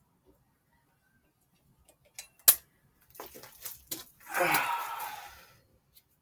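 Metal tools clicking and clinking, with one sharp clack about two and a half seconds in and a quick run of lighter clicks after it, then a short wordless vocal sound, like a grunt or sigh, falling in pitch.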